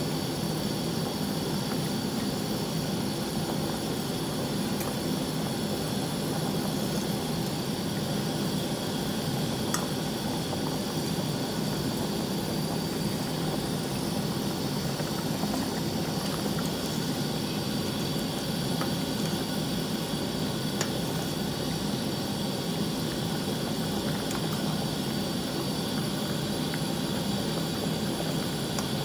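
Pot of beef and pork sinigang broth at a full rolling boil: steady bubbling.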